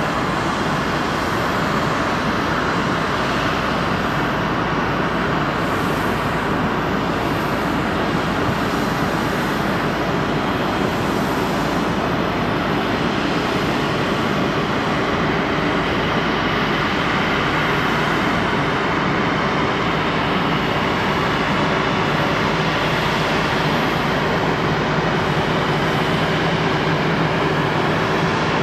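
Boeing 777-300's twin Rolls-Royce Trent jet engines at idle thrust while taxiing, a steady whooshing hum. A low drone grows a little stronger over the last few seconds.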